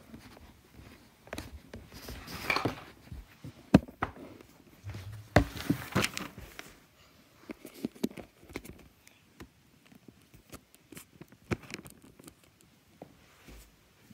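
Handling noise from a phone camera rubbed and moved against clothing: rustling and scraping with a few sharp knocks, the loudest about four seconds in and around six seconds, then only scattered small clicks.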